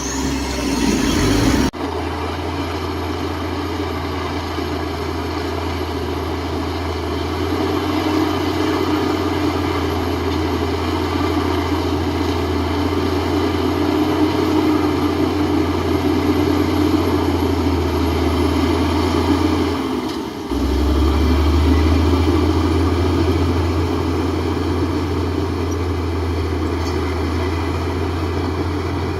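Heavy diesel engine of earthmoving equipment running steadily with a strong low hum. The sound changes abruptly about two seconds in, and again around twenty seconds in.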